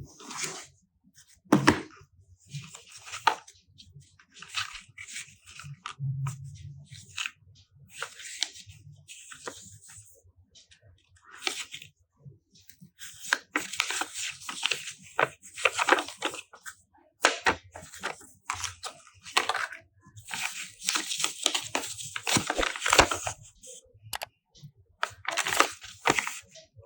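Smartphone packaging being unwrapped by hand: plastic film and wrapping crinkle and tear in irregular bursts, busier in the second half, with a sharp knock about a second and a half in.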